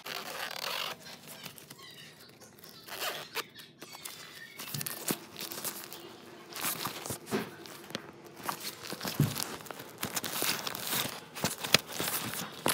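Hands rummaging in a nylon backpack: the fabric rustling and scraping in irregular bursts, with sharp clicks here and there.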